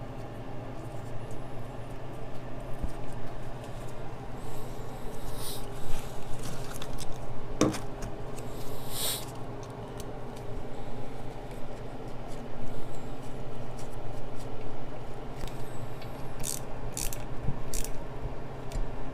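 Scattered small clicks and brief scrapes of parts and tools being handled, over a steady low hum.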